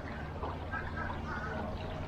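Water lapping and trickling against a kayak hull in a tidal current, over a steady low rumble.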